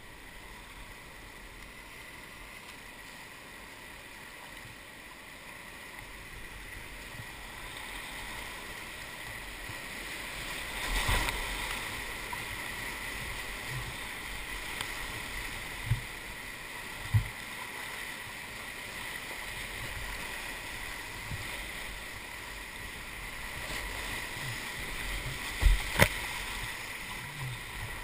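Whitewater rapid rushing around a kayak, building louder about eight seconds in as the boat drops into the waves. A few sharp thumps of water and paddle against the boat stand out, two of them close together near the end.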